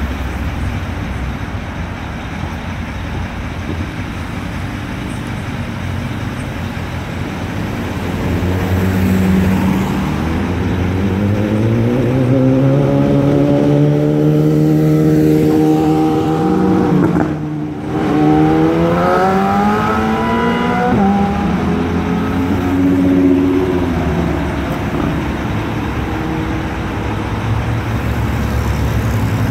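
Street traffic with a motor vehicle engine accelerating through the middle, its pitch rising in several steps over steady road noise, then easing back to the traffic hum.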